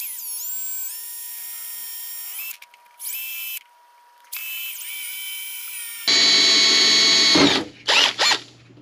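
Cordless 20-volt drill driving a 3/16-inch bit into the white plastic housing of a motorcycle fuel pump, to drill a bypass hole past the clogged internal filter. The motor whines in several trigger pulls, stopping briefly about three and four seconds in, then runs louder for over a second and ends with two short blips.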